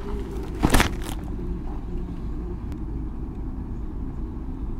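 Steady low rumble of road traffic queued nearby, with a brief rustling burst a little under a second in.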